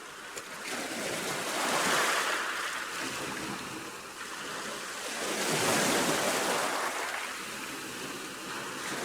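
Sea of Azov waves washing in, a rushing surge that swells and fades twice, peaking about two seconds in and again about six seconds in.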